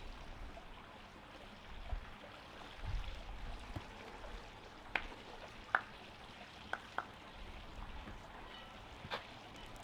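Campfire crackling, with a handful of sharp pops, and low rumbles of wind on the microphone.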